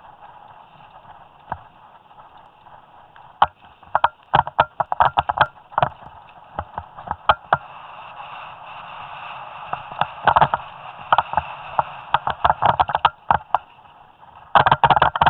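Head-mounted camera on a mountain bike descending rough forest singletrack: air rushing over the microphone with many sharp rattles and knocks as the bike and camera jolt over the trail, coming thick and fast near the end.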